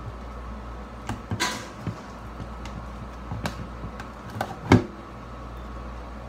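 Metal spoon knocking and scraping against a glass bowl as avocado is mashed: a few scattered clinks and knocks, the loudest a little under five seconds in.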